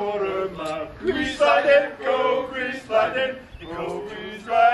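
Male voices chanting in a sing-song way.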